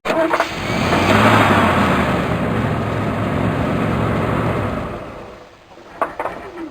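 A large vehicle engine running under a rushing noise, fading away about five seconds in, followed by a few sharp knocks near the end.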